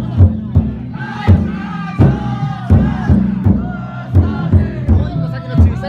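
Taiko drum inside a futon daiko festival float, beaten in repeated heavy strokes. Over it a crowd of bearers shouts long rhythmic chant calls together.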